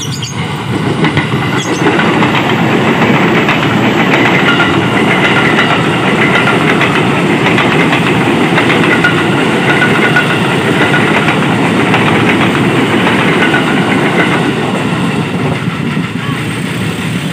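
KRL Commuter Line electric train passing close by, its wheels clattering over the rail joints. The sound swells about two seconds in, holds steady, and eases off a little near the end.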